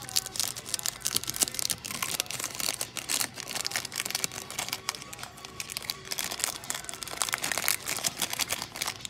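Clear plastic shrink-wrap crinkling and crackling as hands pull it off a small cardboard box, a dense unbroken run of crackles.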